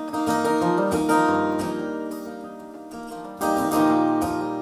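Acoustic guitar strummed, its chords ringing out between sung lines. A fresh strong strum comes about three and a half seconds in.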